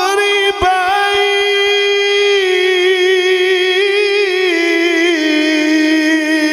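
A male qari's voice in Quranic recitation (tilawat), amplified through a microphone, holding one long melodic note that wavers with ornaments and steps down in pitch twice. A couple of faint clicks come about half a second in.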